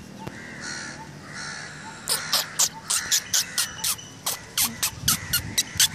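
Crows cawing: a rapid run of short calls, about four a second, starting about two seconds in, with fainter calls before that.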